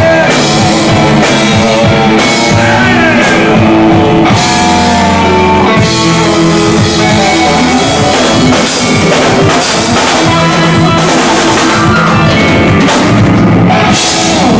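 Live rock band playing loudly: electric guitars, bass, keyboard and drum kit.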